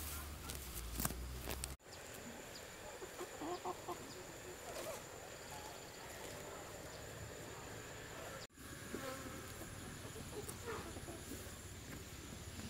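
Outdoor farm ambience: a steady high insect whine with chickens calling faintly now and then. In the first couple of seconds there is a rustling and snapping of plants being pulled up by hand.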